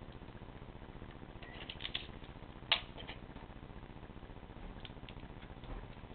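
Sticky tape and a small plastic Tic Tac container being handled while the container's cracks are taped up to stop air leaks: a brief run of crinkles and clicks, then one sharp click, the loudest sound, and a few faint ticks near the end.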